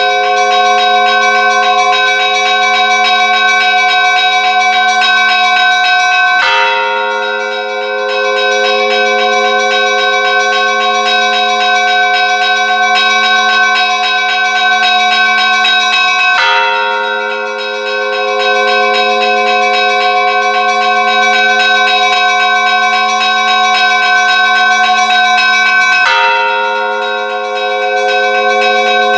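Church bells ringing continuously: a rapid patter of strokes over a dense ring of steady bell tones, with a heavier fresh strike three times, about ten seconds apart.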